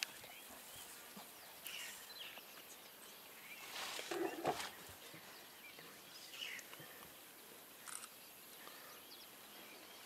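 Quiet bush ambience with a few scattered bird chirps, and one brief louder noise about four seconds in.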